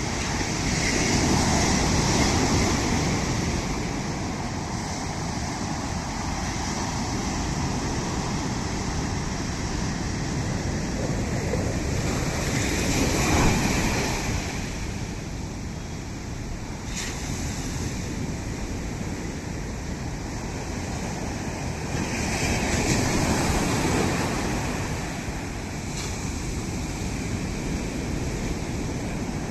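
Ocean waves breaking on a shore, with surges of surf about a second in, around thirteen seconds and around twenty-three seconds, and wind buffeting the microphone.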